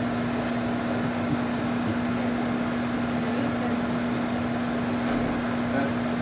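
Microwave oven running with a whole egg heating inside: a steady electrical hum under the even whir of its fan.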